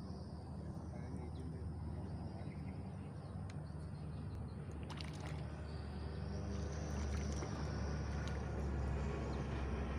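An engine running with a low, steady hum that grows louder over the last few seconds.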